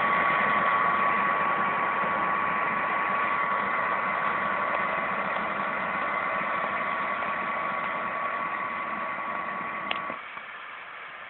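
John Deere 9965 cotton picker running as it moves away, a steady whine over the engine and machinery noise, slowly fading. About ten seconds in there is a click and the sound drops off sharply.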